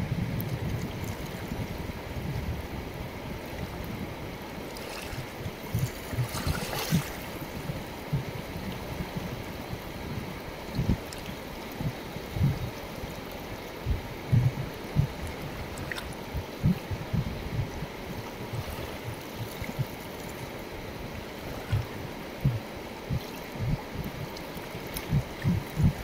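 Wide mountain river running fast over stones at its bank: a steady rush of water, broken by frequent short low thumps.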